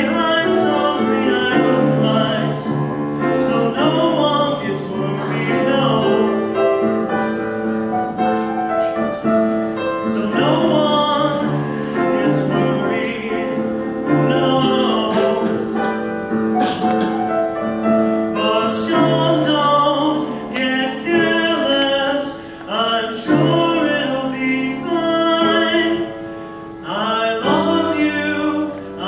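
Solo male voice singing held notes with vibrato, accompanied by a grand piano.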